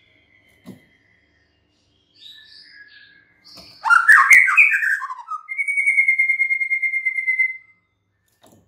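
White-rumped shama (murai batu) singing: faint whistled notes, then about halfway through a loud burst of quick, varied notes, followed by a long, steady, rapidly pulsed trill held for about two seconds.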